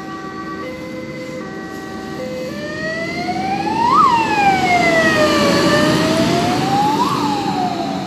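Fire engine siren on an emergency run. It sounds a stepped pattern of alternating tones, then about two and a half seconds in switches to a rising and falling wail. It grows louder as the truck approaches and passes, with the truck's engine and road noise underneath.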